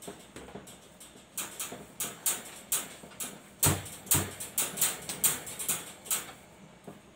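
Hands rolling and patting logs of ube pandesal dough on a floured wooden table: a steady run of soft slaps, about three a second, with two louder thumps near the middle.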